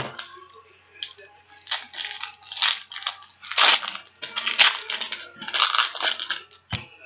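2004 Bowman baseball cards and their pack being handled: a series of short papery rustles and crinkles, roughly one a second.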